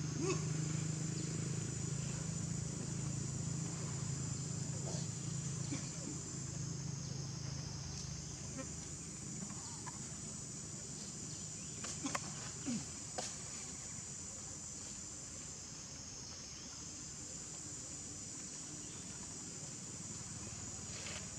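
Outdoor ambience: a steady high insect-like drone throughout, with a low hum over the first several seconds and a few brief clicks and a short faint squeak about twelve seconds in.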